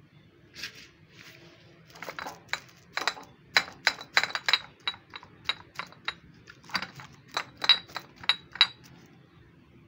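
A domestic cat gnawing and chewing at something held at its front paw, close up, giving a run of sharp, crisp clicks and crunches about three a second, from about two seconds in until near the end.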